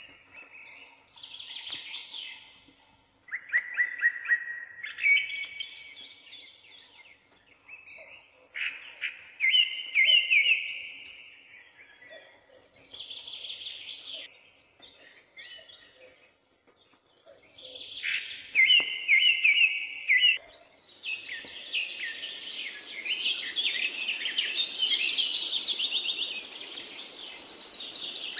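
Birdsong: separate whistled song phrases a second or two long with short gaps between them, turning about three-quarters of the way in into a denser chorus of several birds over a faint hiss.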